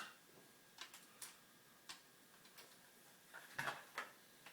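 Faint, scattered light clicks of hex driver bits being picked through and handled, with a small cluster of louder clicks about three and a half seconds in.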